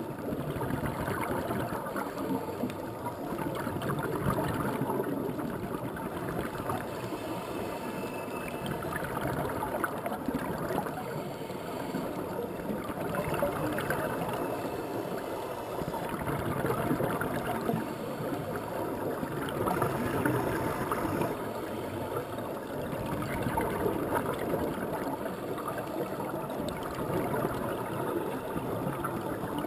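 Underwater sound of scuba regulator exhaust bubbles, a steady bubbling and gurgling that swells every few seconds with the divers' exhalations.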